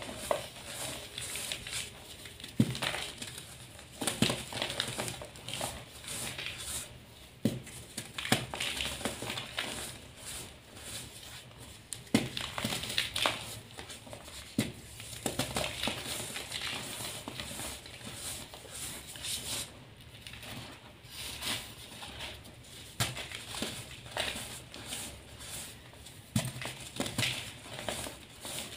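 Blocks of dyed gym chalk crumbled and squeezed by hand: irregular sharp crunches over a steady dry crackle of the powder breaking apart.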